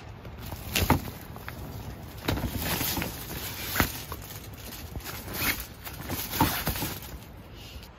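Fabric rustling with a few soft thumps and knocks as a small white dog moves about on blankets.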